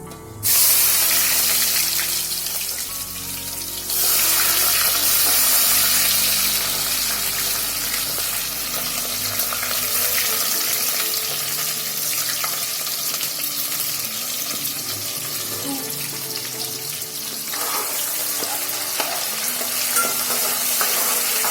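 Onions dropped into hot oil, sizzling loudly as they begin to fry. The sizzle starts suddenly about half a second in and surges again about four seconds in, then keeps on steadily.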